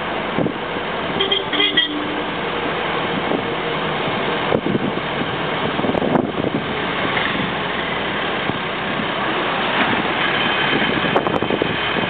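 Steady road and wind noise of a moving vehicle, with a horn tooting briefly about a second in.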